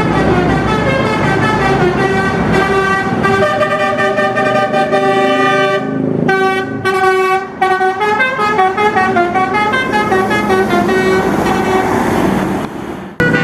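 Bus telolet basuri horn, a multi-trumpet musical horn, playing a melody of quick short notes over a low engine rumble.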